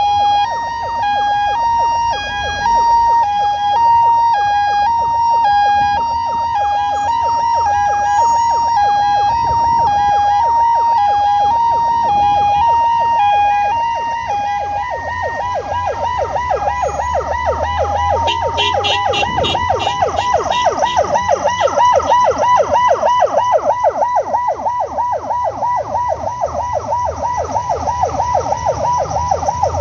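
Ambulance siren sounding close by. It alternates between two pitches for about half the time, then switches to a fast repeating rising wail, over the low rumble of traffic.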